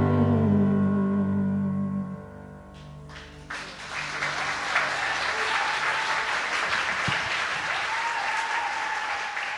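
A sung note over piano chords holds and fades away over the first two seconds. After a short lull, an audience breaks into applause that carries on to the end, with a few cheers rising above the clapping.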